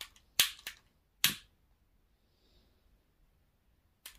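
Long-nosed utility lighter's igniter clicking four times in the first second and a half, sparking to light a candle.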